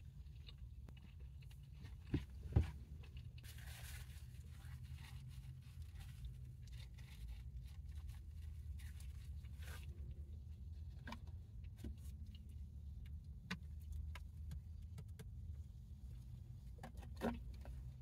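Steady low hum of an idling car engine, with scattered soft clicks and knocks, two louder ones about two seconds in and another near the end.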